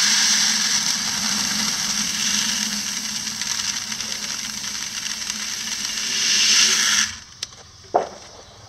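Dry whole grain, red sorghum, poured in a steady stream: a continuous hiss that swells a little near the end and stops abruptly about seven seconds in.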